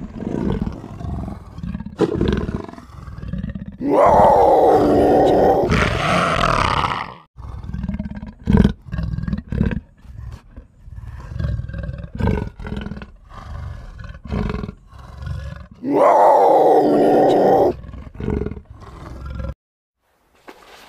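Leopard roaring: two long, loud roars, about four seconds in and again about sixteen seconds in, with shorter grunts and growls between them. The calls stop suddenly near the end.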